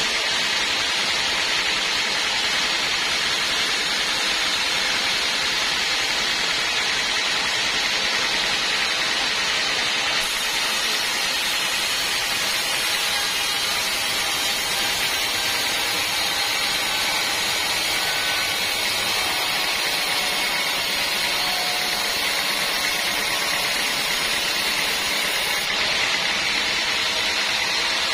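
Band sawmill running, a loud steady noise that holds without a break.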